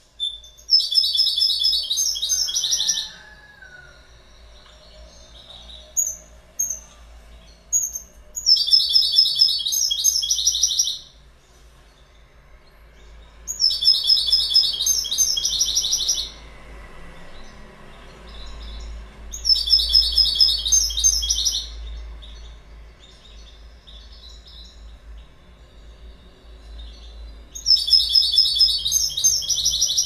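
European goldfinch singing: five bursts of rapid, high twittering song, each about two and a half seconds long. A few short single calls come between the first and second bursts.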